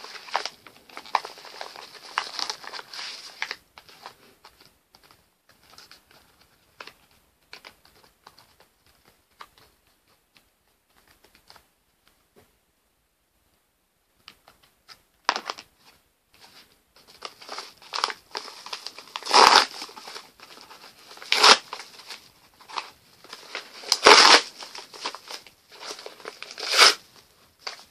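Parcel packaging crinkling and tearing as it is handled and opened by hand. A few seconds of rustling at the start, a quiet stretch in the middle, then a run of crinkling with several loud bursts near the end.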